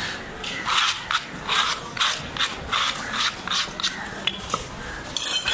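A large fish-cutting knife is scraped again and again across a wet wooden chopping block, about two to three scraping strokes a second.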